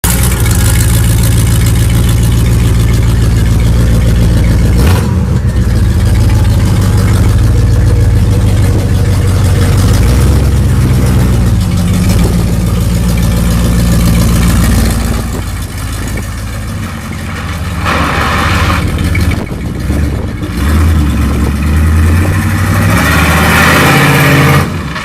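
Small go-kart engine running hard and revving, easing off about two-thirds of the way through, then revving up again before cutting off near the end.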